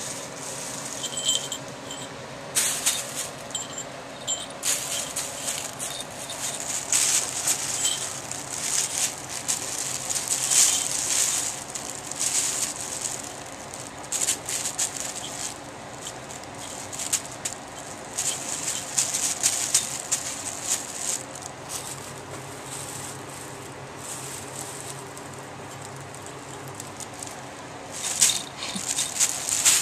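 Clear plastic bag crinkling and rustling in irregular bursts as kittens paw and roll in it. Small collar bells jingle a few times in the first seconds.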